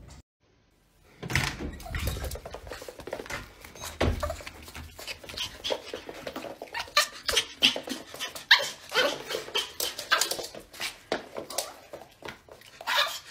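A dog barking and whining excitedly in greeting after being left alone for hours, with some thumps among the calls; it starts about a second in, after a moment of silence.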